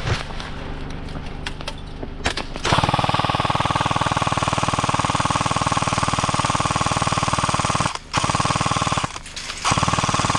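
S&T M249 airsoft electric gun (AEG) firing full-auto in long bursts: a rapid, even rattle of the gearbox cycling over the motor's whir. It starts a few seconds in after some scattered knocks and stops briefly twice near the end.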